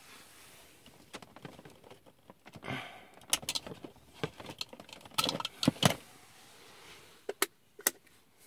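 Rustling and clattering handling noises with scattered sharp clicks, ending in two crisp clicks close together: room lights being switched off.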